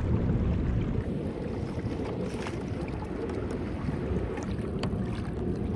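Water rushing and lapping along a kayak's hull as it crosses open river, with wind buffeting the microphone as a steady low rumble.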